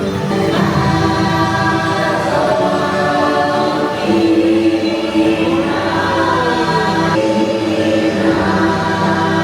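Music with a choir singing, voices in several parts over a sustained accompaniment.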